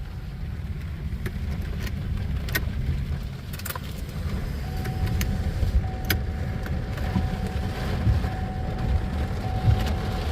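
Low rumble of storm wind and rain buffeting a car, heard from inside the cabin, with scattered sharp taps and a faint steady tone in the second half.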